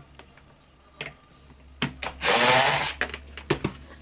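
Bosch cordless drill-driver with a PH2 bit spinning once, briefly, about two seconds in, unscrewing a screw from a power tool's plastic housing. Clicks and knocks of handling come before and after it.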